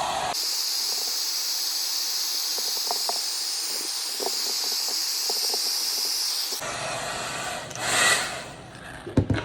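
Hot-air blower running with a steady hiss, heating grip tape so it molds to a pistol frame. It cuts off about six and a half seconds in, and a few light handling knocks and clicks follow near the end.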